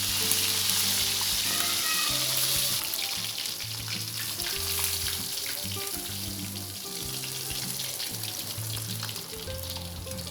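Fish frying in hot oil in a wok: a steady sizzle with scattered crackles, louder for the first few seconds and then settling lower.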